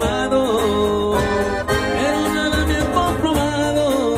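Band playing Latin music, an accordion carrying the melody over a bass line.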